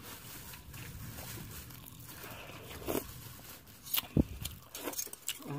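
Meal handling sounds: a metal spoon against a metal bowl of rice, giving a few sharp clicks and one dull knock in the second half, over a faint low background noise.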